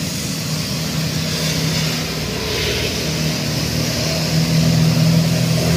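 Traffic on a wet street in the rain: a steady hiss of rain and tyres on the wet road, with motorbike and car engines passing. A heavier engine hum grows louder over the last second or two as a truck draws near.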